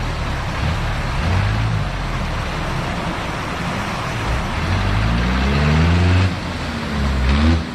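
Off-road 4x4's engine running under load, revving up twice, its pitch rising around the middle and again near the end.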